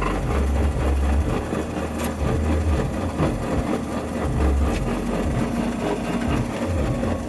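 Honda Fit making a mechanical grinding noise with its engine running: an uneven low rumble with a rattly clatter over it.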